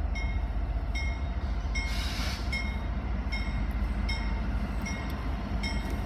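Mainline train approaching from a distance with a steady low rumble. A short ringing tone repeats about once a second over it.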